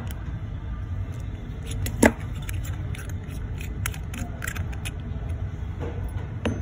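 Sharp metal clicks and taps from a steel watch caseback and its opening tool as the caseback is worked loose and lifted off, with one loud click about two seconds in and a run of smaller clicks after it. A steady low rumble runs underneath.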